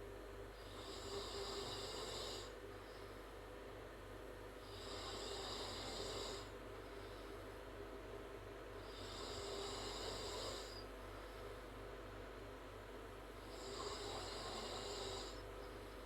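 A girl snoring through an open mouth: four slow, hissy snoring breaths, each about two seconds long and about four seconds apart.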